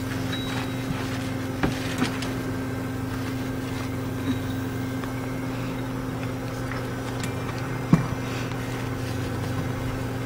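A steady low mechanical hum runs throughout, with a few soft clicks and knocks; the loudest comes about eight seconds in.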